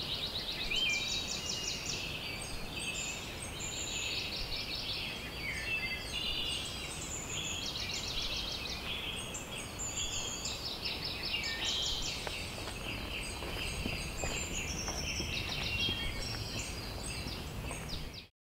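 Several wild songbirds singing at once, overlapping chirps and fast trills, over a low steady outdoor rush; it all stops abruptly near the end.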